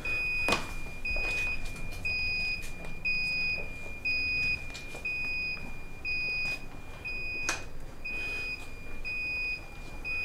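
Electronic beeping: a high tone that alternates steadily between two close pitches about twice a second, alarm-like. Two sharp knocks cut across it, about half a second in and again near the three-quarter mark.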